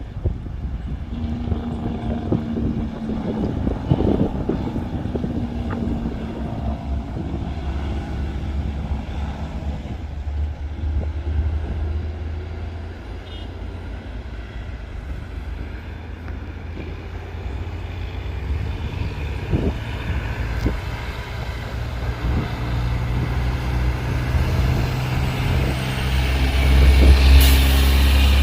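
Freightliner semi truck's diesel engine running under load while hauling a bulldozer, a steady low drone that grows louder near the end.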